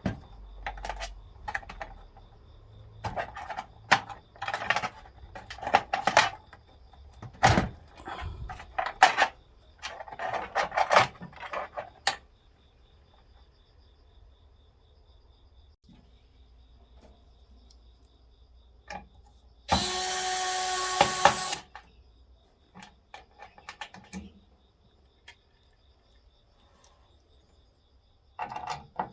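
Clicks and clatter of hardware being handled, then an electric screwdriver runs for about two seconds, followed by a few faint clicks.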